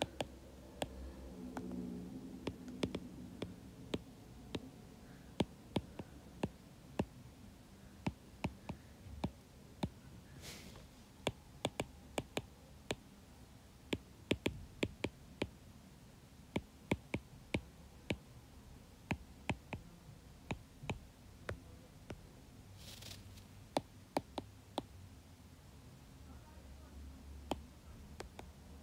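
Stylus tip tapping and clicking on a tablet's glass screen while handwriting letters: irregular sharp clicks, often several in quick succession. Two brief soft hisses come about a third of the way in and again near the end.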